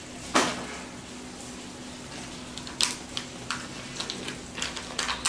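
Small plastic toy pieces from a Kinder Joy capsule clicking and tapping as they are handled, one click about half a second in, then a quick run of clicks in the second half, over a faint steady hum.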